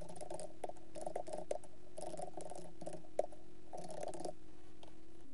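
Typing on a computer keyboard: quick irregular runs of key clicks with short pauses between them, one sharper click about three seconds in, over a faint steady hum.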